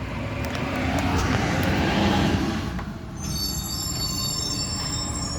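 A refuse truck's engine rumbling by on its collection route, with a high, many-toned squeal of its brakes starting about three seconds in.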